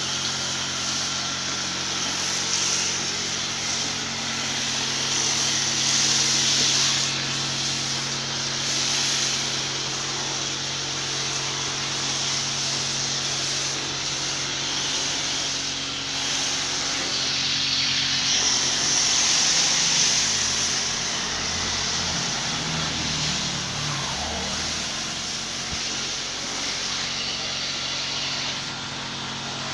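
Pressure washer running: a steady motor hum under the hiss of the water jet spraying a scooter. The spray gets louder and softer as the jet moves.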